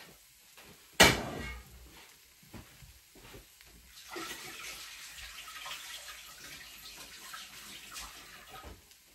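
A sharp knock about a second in, then a few light clicks, and water running from a kitchen tap for about five seconds before it is turned off.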